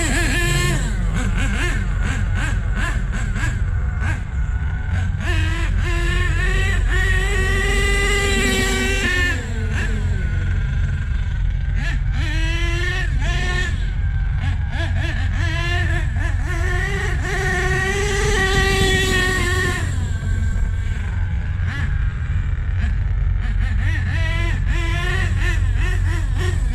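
Small nitro glow engine of an HPI Savage RC truck revving up and down as it is driven, rising to high revs in two long pulls. The low-speed needle is set a little rich.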